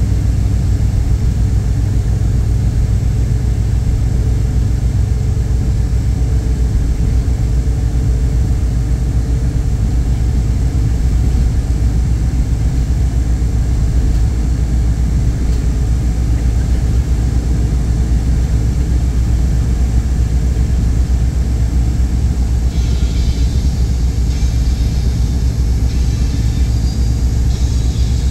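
Steady low rumble of a moving vehicle heard from inside, with a higher hiss joining in the last few seconds.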